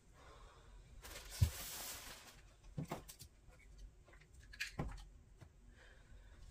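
Handling noises while tidying: a brief rustle with a thump about a second and a half in, then a few light knocks and clacks, such as plastic clothes hangers being handled.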